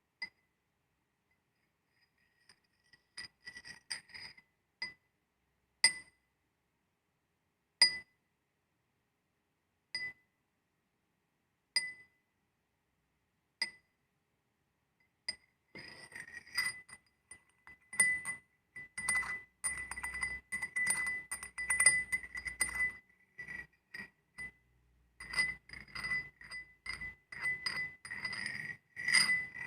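Glass knocked and rubbed against iron, ringing with a high clear tone. Single clinks come about every two seconds at first, then from about halfway the contact turns into fast continuous clinking and scraping with the glass ringing throughout.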